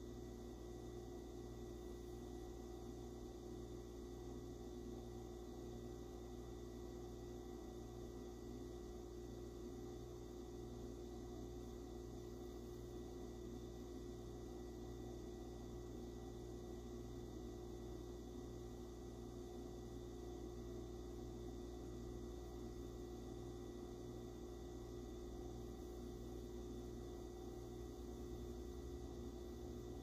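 Faint, steady room tone: a low hum and hiss with a couple of thin steady tones, with no crackles, pops or other events.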